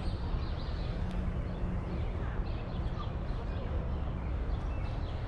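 Indistinct background voices over a steady low rumble outdoors, with no single sound standing out.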